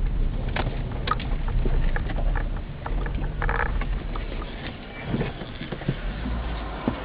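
A car's engine and road rumble heard from inside the cabin at low speed, with scattered clicks and rattles. The low rumble eases off about halfway through and comes back near the end.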